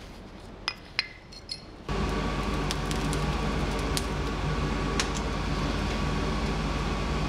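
A few sharp metallic clinks as the steel axe head is handled on the anvil. From about two seconds in, the steady rush of a blower-fed forge fire with a constant hum and scattered crackles, as the axe head is heated.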